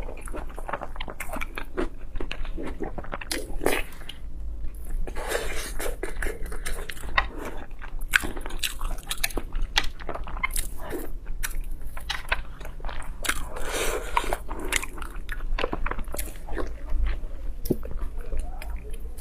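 A person biting and chewing crunchy food, with many loud crunches and wet chewing sounds in an irregular rhythm.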